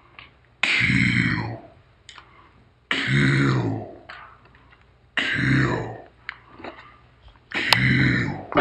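A person making a harsh, guttural vocal sound over and over, one burst about every two seconds, each lasting about a second.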